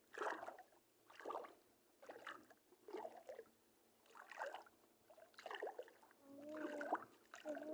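Water splashing in short, regular strokes about once a second, like wading or paddling through shallow sea water. A pitched sound joins near the end.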